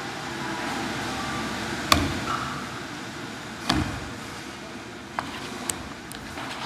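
A metal kamaboko knife scraping and smearing fish paste across a plastic cutting board, working it to draw out stickiness and push out air. Two sharp knocks come about two and nearly four seconds in, followed by a couple of light clicks.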